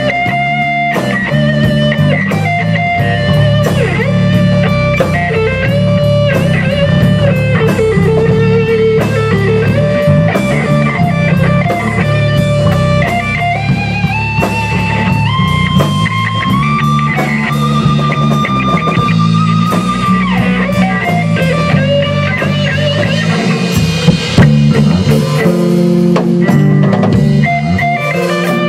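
Rock band playing an instrumental passage: electric guitar playing a held lead line with bends over bass guitar and a drum kit. The guitar line climbs in pitch partway through.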